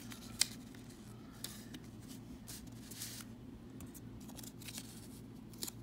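Paper being handled and pressed down on a sheet: soft rustles and scrapes, with a sharp tick about half a second in, over a faint steady low hum.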